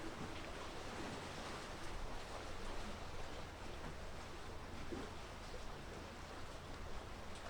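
Steady outdoor wash of wind and water: a soft, even rush with a low rumble underneath and no distinct events.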